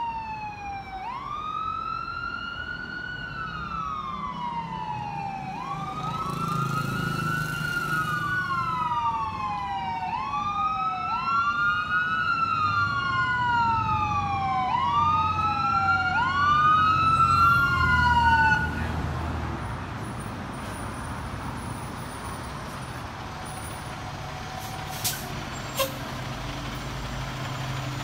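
Fire engine siren wailing in a repeating cycle, each wail rising quickly and falling slowly, growing louder as the truck approaches; from several seconds in, two wail cycles overlap. The siren cuts off suddenly about two-thirds of the way through, leaving the truck's engine running as it rolls past, with two sharp clicks near the end.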